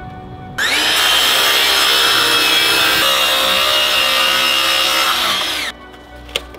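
Electric power tool cutting or sanding wood: it starts sharply about half a second in, runs steadily with a whine for about five seconds, and winds down near the end.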